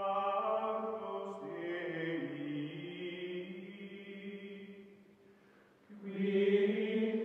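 Choral music: voices singing long held chords that shift a couple of times, fade down about five seconds in, and swell back in about a second later.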